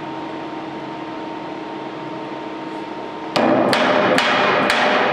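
Hammer striking a steel bracket four times in quick succession, starting a little past three seconds in, to knock it down to level; the metal keeps ringing between the blows.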